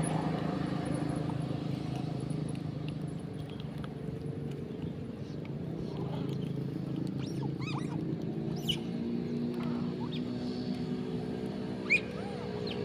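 Monkeys giving short, high squealing calls several times, the loudest near the end, over a steady low engine hum.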